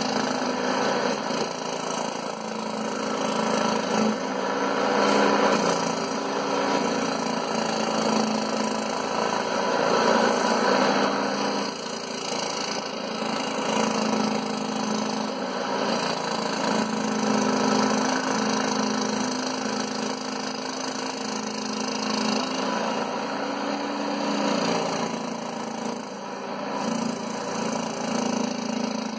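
Scroll saw running while its blade cuts through MDF. A steady motor hum sits under the rasp of the blade in the board, swelling and easing a little as the piece is fed.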